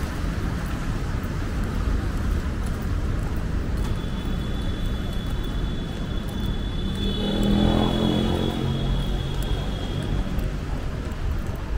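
Road traffic on a rain-wet city street: a steady rumble and tyre hiss, with one vehicle passing close about seven to nine seconds in. A steady high-pitched whine sounds over it from about four seconds in until near the end.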